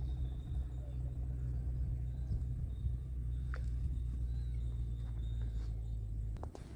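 Steady low rumble with a faint, steady high-pitched tone, and a few light clicks near the end.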